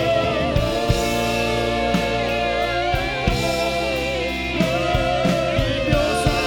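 Worship band playing an instrumental passage: a wavering melodic lead line over sustained chords and bass, with occasional drum hits.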